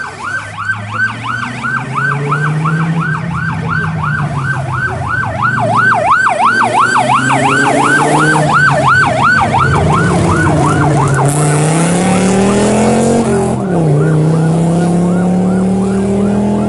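Rally '00' safety car, an Audi coupé, passing with its siren wailing quickly up and down, about three sweeps a second. The siren cuts off about eleven seconds in, and the engine is then heard pulling away hard, with one gear change shortly after.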